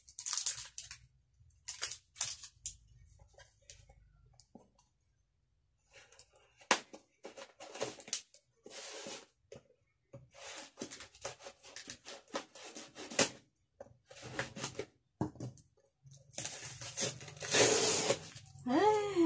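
Scissors cutting and scraping into a cardboard shipping box in a series of short strokes. Then packing tape and cardboard rip as the box is pulled open, the longest and loudest rip coming near the end.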